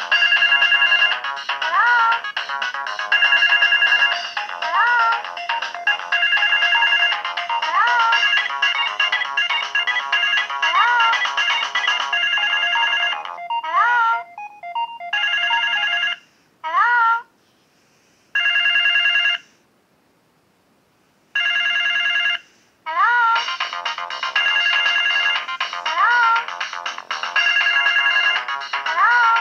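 Samsung SGH-X700 mobile phone playing its polyphonic ringtone for an incoming call: a looping electronic melody with short rising sliding notes. About halfway through it thins to a few separate phrases with brief silences between them, then the full tune comes back.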